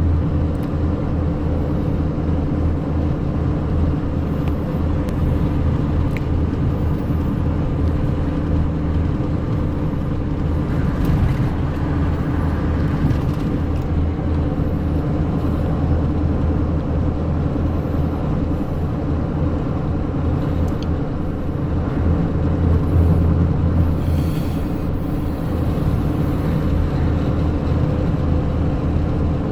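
Pickup truck cab noise while driving at road speed: a steady low drone of engine and tyres on the road.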